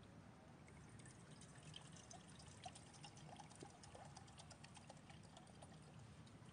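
Coffee poured from a small pot into a steel mug: a faint trickle with small splashing ticks.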